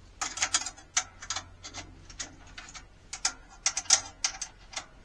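Ratcheting drum key clicking in quick, irregular runs as it turns the tension rods of a 14x8 snare drum, snugging up a loose drumhead.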